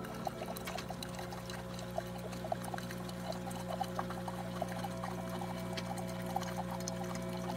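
Single-serve coffee maker brewing: a steady machine hum with hot coffee streaming and spattering into a ceramic mug as it fills.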